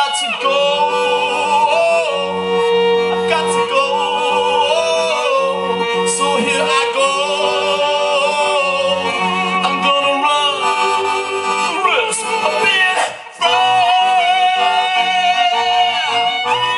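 Live song: a male voice sings a melody into a microphone over accordion and violin. The band cuts out for a moment about three-quarters of the way through, then comes straight back in.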